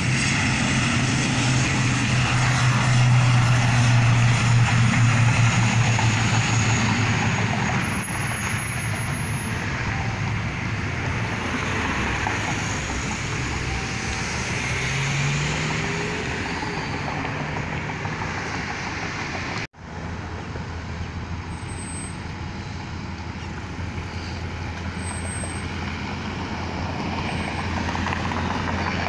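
Road traffic: cars driving past on a multi-lane road, with a steady low engine drone over the first eight seconds that then fades. The sound cuts out for a split second about two-thirds of the way through.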